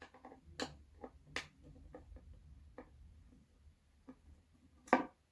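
Irregular clicks and taps of hands and tools working a paper tweeter out of a speaker, a cluster in the first second and a half, then scattered ones, with one louder knock near the end.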